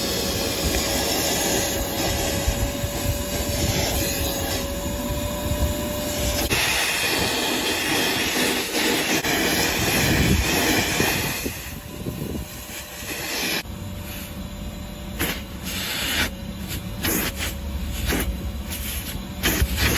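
Armor All AA255 2.5-gallon wet/dry shop vacuum running with a steady motor whine and rush of air for the first few seconds. The sound shifts about six seconds in, and in the second half it turns choppy and uneven, with repeated sudden changes in the airflow noise.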